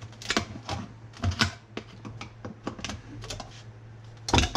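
Lid being worked off a paint can: a run of short clicks and taps, with a louder knock near the end.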